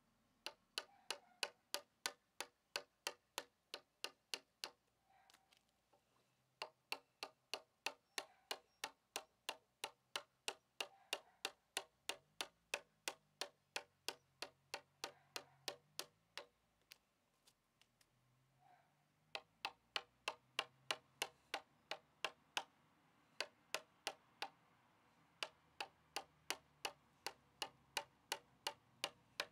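A hand tool striking a log in quick, regular blows, about three a second, as bark is worked off. There are two short pauses.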